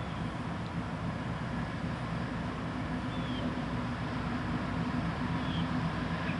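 Diesel locomotive of an approaching CSX freight train running, heard as a steady low drone that grows slowly louder as it nears.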